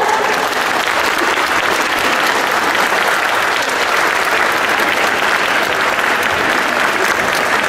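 Audience and performers applauding: dense, steady hand clapping with no rhythm.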